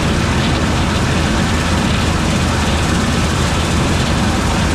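New Holland TR89 combine harvester at work in oats: engine and threshing machinery running with a loud, steady mechanical noise.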